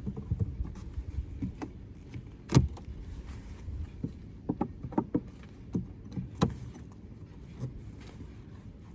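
Wooden hive frames and tools being handled, giving scattered sharp clicks and knocks, the two loudest about two and a half and six and a half seconds in, over a steady low rumble of wind on the microphone.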